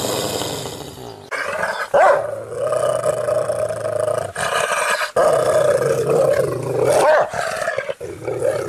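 Rottweiler growling and snarling aggressively in several long, rough stretches broken by short pauses.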